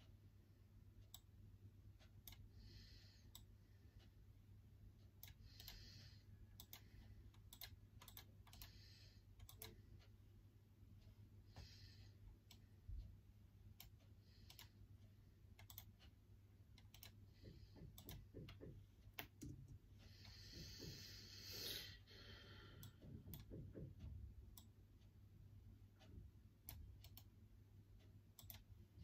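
Faint, irregular key clicks of someone typing on a computer keyboard, with a longer soft noise about twenty seconds in, over a low steady hum.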